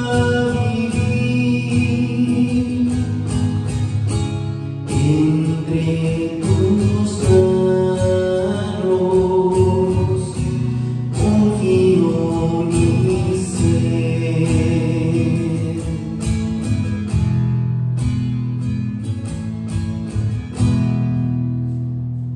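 A man singing a hymn while strumming a nylon-string classical guitar. It ends on a final strummed chord that rings out and fades near the end.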